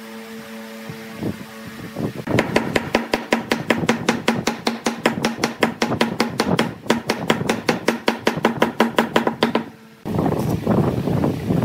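Rapid, even hammer blows, about six a second, from a wooden mallet driving round branch plugs down into holes bored in a wood block, over a steady hum. The blows stop suddenly near the end and a rough rushing noise takes over.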